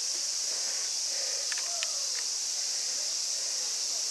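Cicadas droning in a steady high-pitched hiss, with a few faint clicks about a second and a half in and a faint murmur of distant voices beneath.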